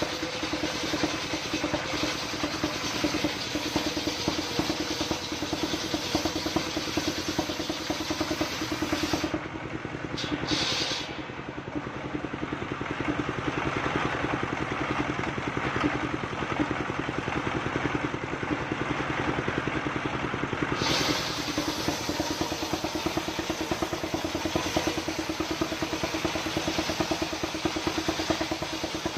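Diesel engine running steadily, driving a circular saw blade that rips a coconut-palm log lengthwise, the engine's regular beat under the hiss of the blade in the wood. The sound eases briefly about ten seconds in, then picks up again.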